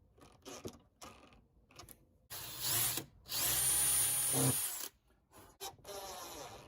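Cordless drill-driver running screws in two short runs, one about two and a half seconds in and a longer one just after, likely fixing undermount drawer slides. Light clicks and knocks of handling come before and after the runs.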